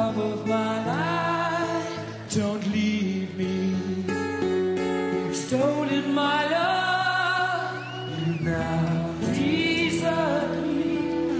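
Background music: a slow song with a singing voice holding long notes.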